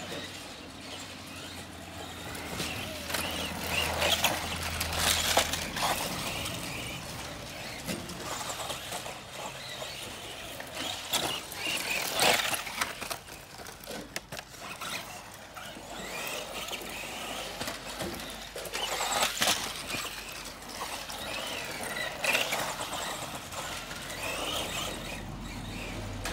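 Electric radio-controlled buggies, a Tamiya Bigwig and Rising Fighter, driving on a dirt track: motor whine rising and falling with the throttle, with louder bursts of tyres scrabbling on the dirt several times as the cars pass close.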